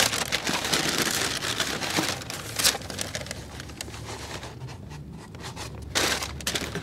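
Tissue paper crinkling and rustling in a cardboard shoebox as football boots are unwrapped and taken out. Busiest in the first few seconds, with a few sharp handling clicks and another burst of rustling near the end.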